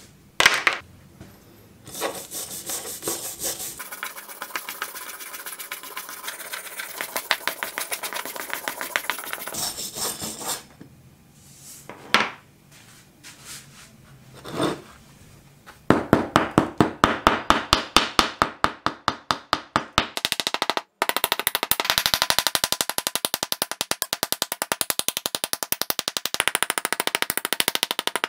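Hand wire brush scrubbing loose rust off a heavily rusted steel axe head in quick back-and-forth scraping strokes. The scrubbing pauses about ten seconds in, with a couple of single scrapes, then resumes louder in a steady rhythm that quickens near the end.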